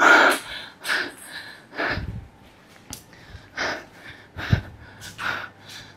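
Table tennis balls knocking and bouncing at irregular intervals, about seven or eight times in six seconds, mixed with a player's short, heavy breaths after hard looping strokes.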